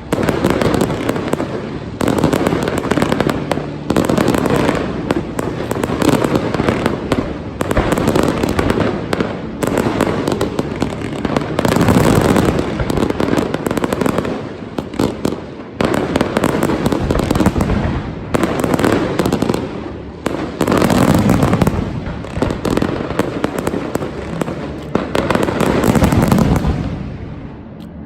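New Year's fireworks barrage: many shells bursting in quick succession, overlapping into a continuous din that swells and eases every few seconds, then dies down just before the end.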